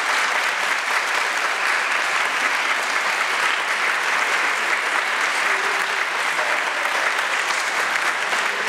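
A congregation applauding steadily, many hands clapping at once.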